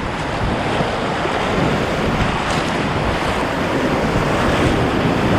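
Steady, loud rush of whitewater rapids churning around a kayak as it runs through big waves, building slightly toward the end.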